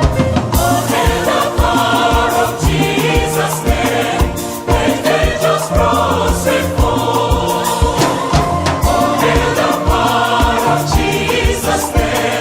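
A choir singing a hymn in gospel style over accompaniment with a steady beat.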